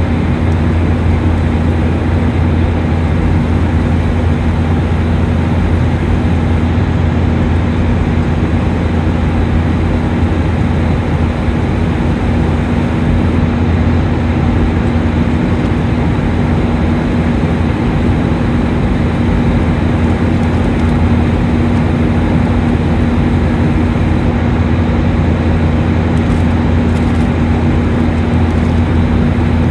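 Steady cabin drone of a Boeing 737-800 in flight, heard inside the cabin: the CFM56 turbofan engines and rushing airflow, with a deep hum and a steady higher tone that hold constant throughout.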